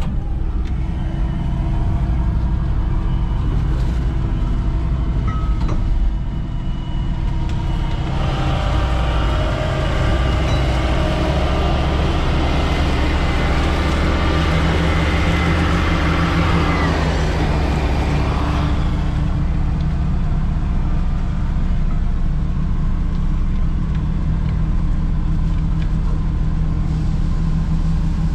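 Truck engine running with a steady low drone under load. From about eight seconds in, a louder hiss and whine builds over it, then falls away again a little before twenty seconds.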